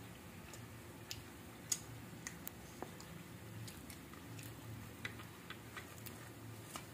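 Small, irregular crackles and clicks of a crisp, flaky fried kachori crust being handled and broken open by hand, over a faint steady low hum.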